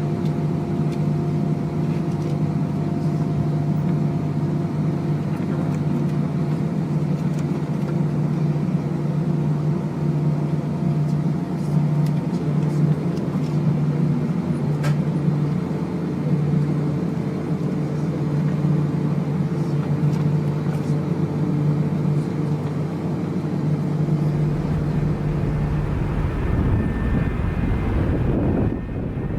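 Airbus A320 jet engines running steadily, heard as a droning hum with several steady tones over a low rush. Near the end a deeper low rumble comes in.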